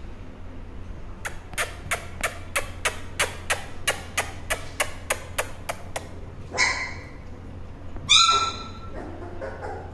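A steady run of sharp clicks, about three a second, lasting some five seconds. After it, Doberman puppies yelp twice: a short yelp, then a louder, higher-pitched one about a second later.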